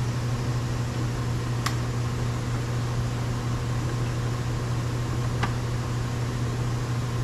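Steady low mechanical hum with a hiss, like a running fan or air-conditioning unit, broken by two faint clicks, about two seconds and five and a half seconds in.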